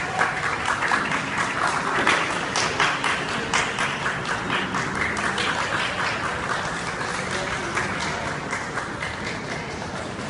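Audience applauding: dense clapping that is strongest about two seconds in and slowly thins out toward the end.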